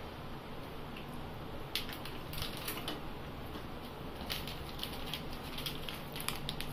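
Plastic biscuit packet crinkling and rustling as it is handled, heard as scattered light crackles starting about two seconds in.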